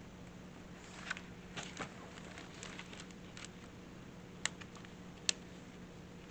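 Faint rustles and light clicks of a picture book being handled, with two sharper clicks near the end, over a low steady room hum.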